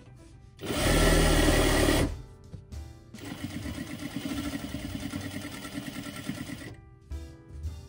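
Industrial straight-stitch sewing machine stitching in two runs: a short loud run about a second in, then a longer, quieter run of fast, even stitching from about three seconds in until near the end.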